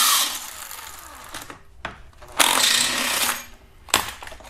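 Cordless power tool spinning the lower AC compressor mounting bolts loose in two short runs, one stopping just after the start and one about halfway through, with a few metallic clicks between.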